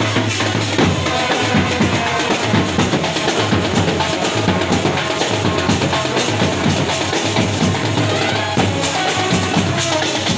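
Indian procession band playing loud music driven by heavy drumming, bass drum and snare strokes over held melody notes.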